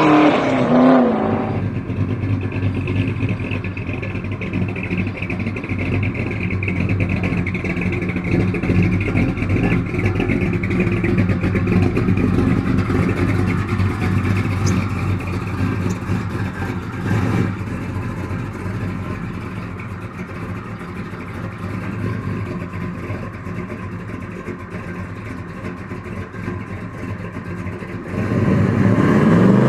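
Chevrolet Chevelle SS V8 running at a steady idle, a low even engine note. Near the start another car's engine note falls away, and near the end an engine revs up sharply.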